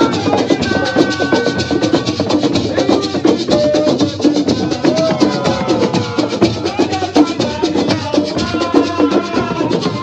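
Live percussion music with a fast, steady rattle of shakers and drums, and a voice singing into a microphone over it.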